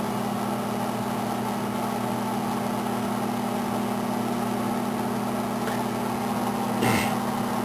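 Microwave oven running: a steady electrical hum over the whir of its fan. A short click comes near the end.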